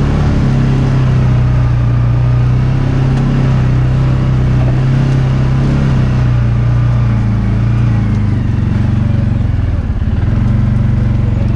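CF Moto UForce 550 side-by-side's single-cylinder engine running steadily while driving over rough ground. The engine note drops a little about seven seconds in, dips briefly near the end, then picks up again.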